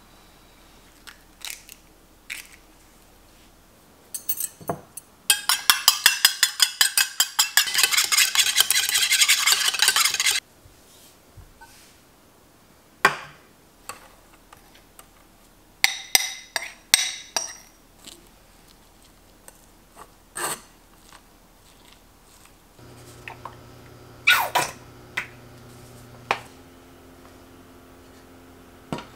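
Kitchen utensil handling: scattered clicks and clinks of metal utensils, broken by about five seconds of rapid, rhythmic scraping strokes. Later a spoon clinks against a stainless mesh strainer of shredded potato. Near the end the induction hob sets up a steady low hum under knocks of the pan.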